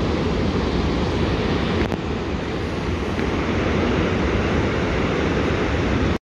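Vøringsfossen waterfall rushing in the gorge below, a steady deep noise mixed with wind on the microphone; it cuts off suddenly near the end.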